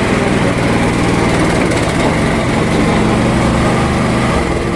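Small engine running steadily at a constant speed, then winding down just before the end.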